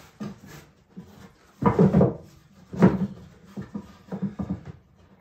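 Finger-jointed wooden beehive box sides knocking and clunking as they are handled and pushed together, checking how the joints fit: two louder clunks, the first a little under two seconds in and the second about a second later, then several lighter taps.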